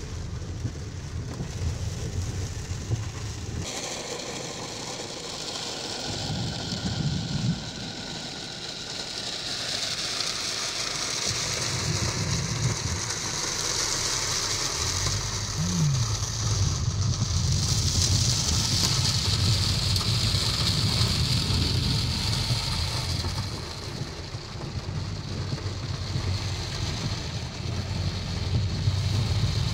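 Heard from inside a car in a heavy downpour: the engine's low hum under a steady hiss of rain and wet-road noise. The hiss grows louder through the middle and eases off near the end.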